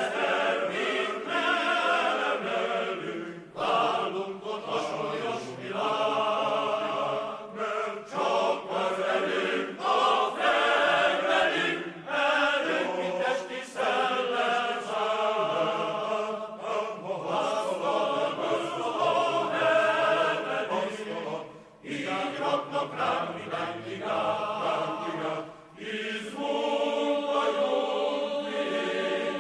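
Background music: a choir singing, in long phrases with short breaks between them.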